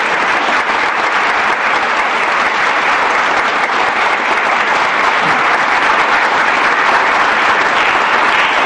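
A congregation applauding: steady, dense clapping of many hands.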